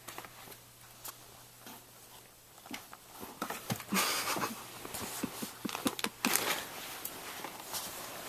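A sleeping person snoring, with two loud snoring breaths about four and six seconds in and a few faint clicks between them.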